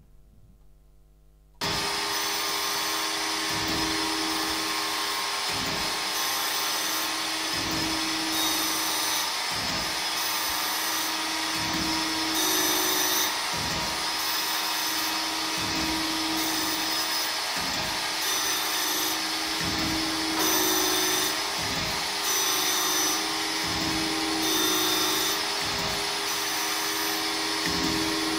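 Blohm Simplex surface grinder running after near silence, starting abruptly about a second and a half in: a steady motor and wheel hum with grinding hiss, and a low thump about every two seconds as the reciprocating table reverses. The hiss brightens and grows louder a few times as the wheel grinds across the lathe cross-slide table.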